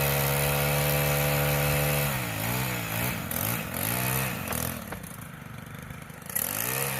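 Small-engine saw running fast and steady, then its pitch dips and climbs back a few times as it works through limbs. About five seconds in it eases off to a lower level, then revs up again near the end.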